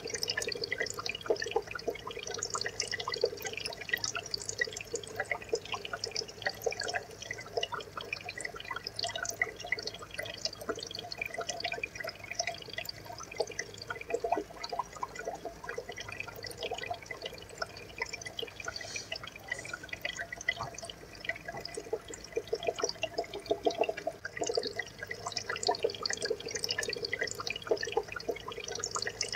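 Aquarium water trickling steadily, with a dense patter of small drips.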